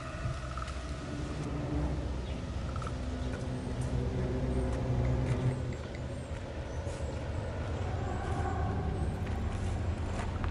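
A low, steady rumble with faint held tones above it and a few faint ticks.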